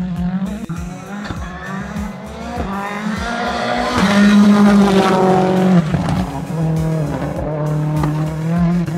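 Turbocharged rallycross race car engine revving hard as the car accelerates and changes gear, its pitch climbing and dropping. It is loudest about four to six seconds in, as the car passes close.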